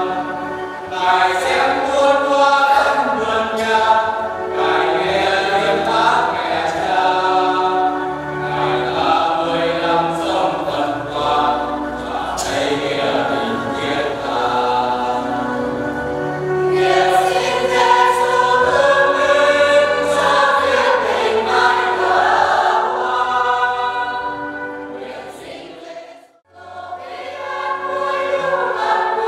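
A choir singing a hymn, with a short break near the end before the singing goes on.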